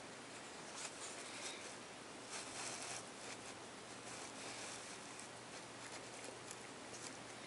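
Soft scratchy rustling as a kitten's fur and face rub against the camera, a few short rustles with the loudest about two and a half seconds in, over a faint steady hum and hiss.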